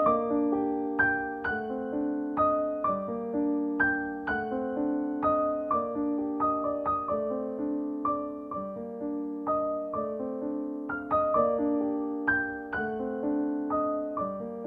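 Background piano music: a steady run of single struck notes, each ringing and fading before the next.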